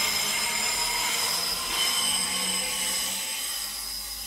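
Queensland Rail electric suburban passenger train running out along the platform, its wheels giving off several high, steady squealing tones over a rushing rolling noise. The sound fades as the last car draws away.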